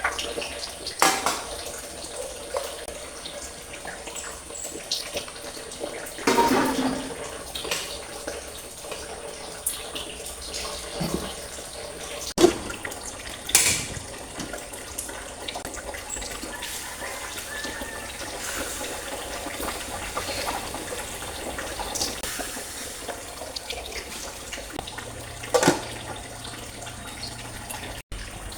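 Water running steadily from a tap, with a few sharp knocks and clatters of things being handled under it.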